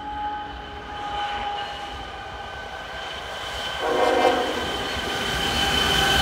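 Air horn of an approaching Union Pacific GE Evolution-series locomotive on a loaded coal train, sounding a long, steady multi-note chord that grows fuller about four seconds in. Underneath, the rumble of the locomotive and train gets louder as it nears.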